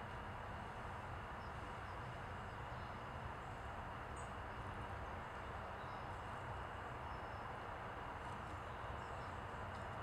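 Steady outdoor background hiss and rumble, with a few faint, short, high chirps from small birds scattered through.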